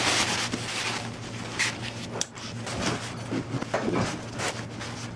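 Nylon tent fabric rustling and crumpling as it is stuffed by hand into a compression sack, with scattered knocks and brushes as gear is handled into a backpack.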